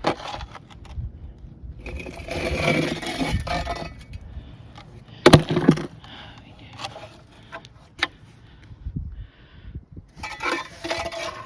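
Scraping and clattering of hard objects being handled, with a sharp knock about five seconds in, the loudest sound, and scattered clicks.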